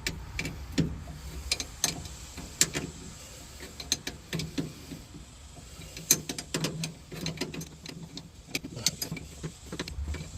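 Scattered, irregular clicks and light knocks, as of tools and metal parts being handled, over a low steady hum.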